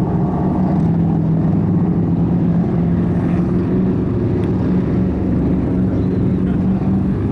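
Quarter midget race cars' small single-cylinder engines running together in a steady drone, holding an even pitch without revving as the cars circle the track slowly before the restart.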